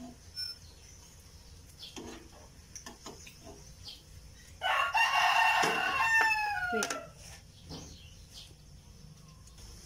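A rooster crows once about five seconds in: one call of roughly two and a half seconds, steady and then dropping in pitch at the end. Before it come a few light clicks of a utensil at the frying pan.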